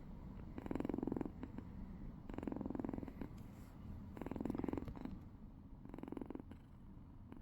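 Kitten purring, swelling louder for under a second with each breath about every two seconds and quieter in between, a sound that could also pass for snoring.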